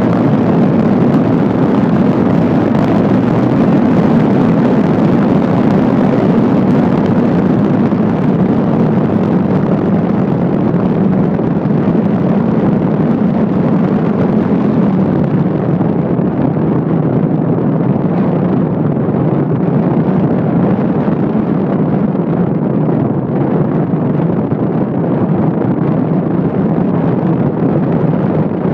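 Steady rushing road and wind noise of a moving car, heard from inside it, turning slightly duller about halfway through.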